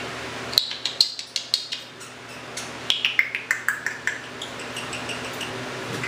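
Timneh African grey parrot making a run of sharp clicks, then a quick series of short chirps that fall in pitch, about five a second.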